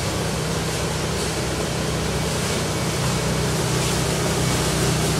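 Chapman ATV flail mower running behind a utility vehicle, its flails cutting through dense woodland undergrowth: a steady engine hum under a broad rushing noise, a little louder in the second half.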